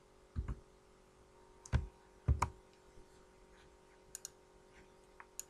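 Separate clicks of a computer mouse and keyboard keys. Three firmer clicks with a dull thump come in the first two and a half seconds, followed by a few lighter ticks near the end.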